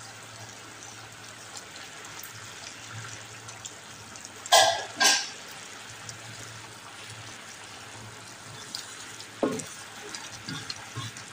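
Chicken curry with potatoes and cauliflower simmering in a pan, a steady bubbling hiss over a low hum. Two short loud noises come about halfway through, and a spatula stirs the curry near the end.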